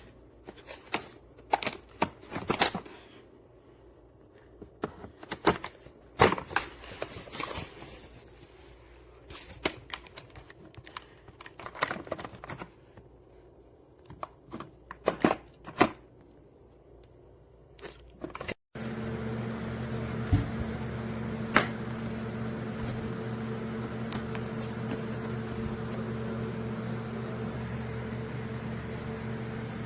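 Hard plastic tools and case parts being handled, giving scattered clicks and clatters. After about 18 seconds it cuts abruptly to a steady mechanical hum, with two short clicks soon after.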